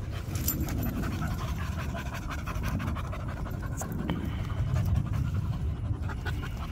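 Dogs panting at close range.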